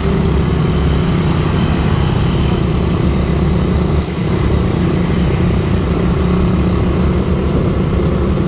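Motorcycle engine running steadily at an even pitch, with no revving.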